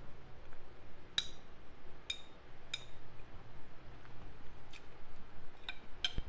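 A metal fork clinks against a ceramic plate about six times, short and ringing, with quiet chewing in between.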